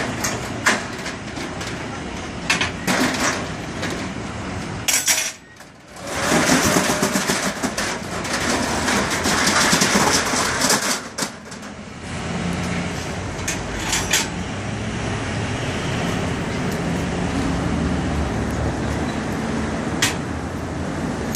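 Guardrite roll-up steel security gate being raised, its metal slats rattling and clattering with many sharp clicks, loudest a few seconds in; a steadier rumble with a low hum follows.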